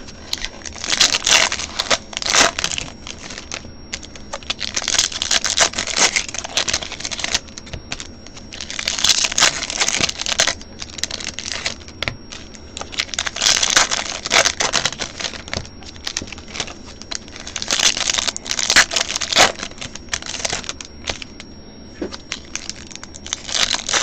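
Foil wrappers of baseball card packs crinkling and tearing as packs are ripped open one after another, in repeated bursts about every four seconds.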